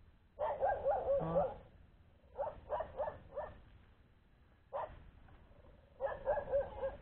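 A dog barking in three short runs of quick, high-pitched yelps, each about a second long: one near the start, one in the middle, one near the end. A brief knock sounds just before the last run.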